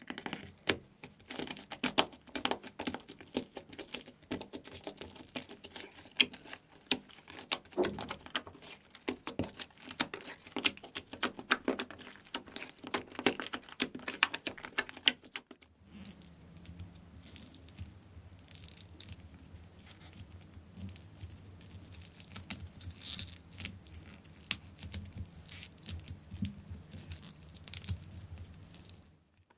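Slime being worked by hand, a dense run of small sharp clicks and crackles. About halfway through it cuts abruptly to a different take, with a deeper, fuller sound under lighter clicks.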